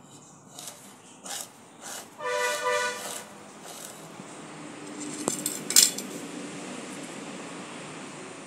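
A stick scraped in short rasping strokes over leaves pressed on a wooden plank, stripping off the green pulp. About two seconds in, a steady honk-like tone lasts about a second, then a steady rumbling noise sets in, with a sharp knock, the loudest sound, near six seconds.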